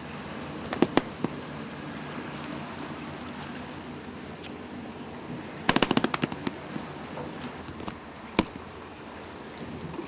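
A live tuna slapping its tail against a vinyl measuring cradle on a boat deck, heard as sharp knocks. There are two or three knocks about a second in, a rapid drumming burst of about ten knocks at around six seconds, and one lone knock near the end, over steady background noise.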